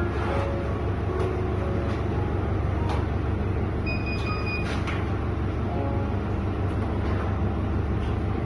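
A steady low rumble with scattered light knocks and clatter, and a few brief high tones about four seconds in.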